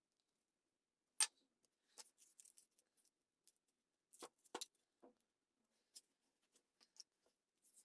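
Faint handling noise: scattered light clicks and taps of a thin steel blade being handled and laid on a wooden block, with a sharp click about a second in and a heavier double knock about four and a half seconds in.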